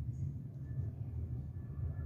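Jet airliner engines heard from a distance: a steady low rumble with a faint thin whine over it.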